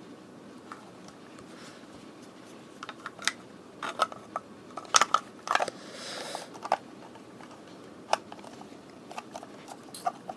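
Plastic clicks, taps and a brief scrape of a small transistor radio being handled and its snap-on back cover fitted. Irregular clicks come in a cluster near the middle, with a short scraping sound among them and a few more clicks later.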